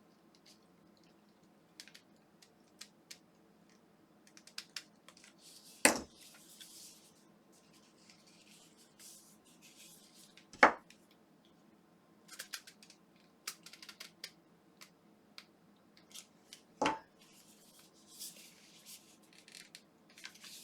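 Small plastic parts of an electric toothbrush being handled and fitted back together: scattered light scratching and clicking, with three louder sharp clicks about six, eleven and seventeen seconds in.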